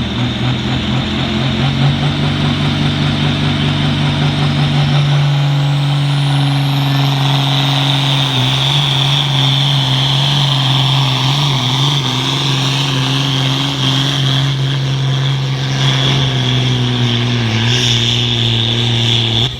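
A 10,000-lb hot farm class pulling tractor's turbocharged diesel engine held at full throttle, running steadily as it pulls the sled down the track.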